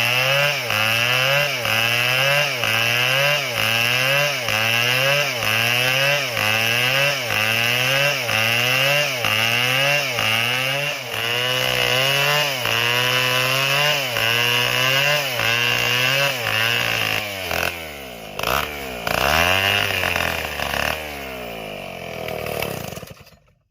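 Large two-stroke chainsaw cutting wood under load, its engine pitch rising and sagging about once a second. Near the end the revs fall and swing up and down a few times, then the sound fades out.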